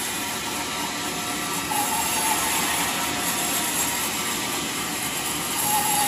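Sawmill machinery running steadily, a constant noisy din with a faint whine that comes in briefly about two seconds in.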